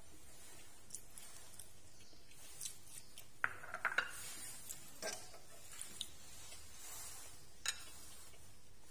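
Light clinks and knocks of tableware: a ceramic rice bowl set down on the table, with a few sharp taps clustered about four seconds in, then a metal spoon knocking against a china serving bowl as it dips into the sauce near the end.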